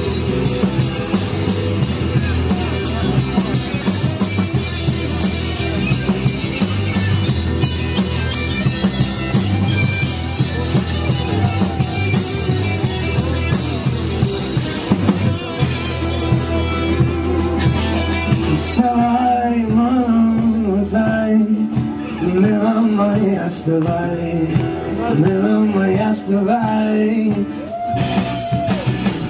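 Rock band playing live with drum kit, bass, guitars and singing. About two-thirds of the way through, the drums and bass drop out, leaving singing over guitar.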